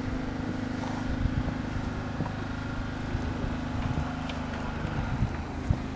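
Wind buffeting the microphone in uneven low gusts, over a steady low hum.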